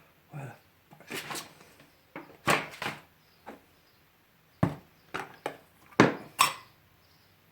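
Irregular sharp clicks and knocks, about ten in all, of small hard parts and hand tools being picked up and set down on a workbench; the loudest come about two and a half seconds in, past four and a half seconds, and at six seconds.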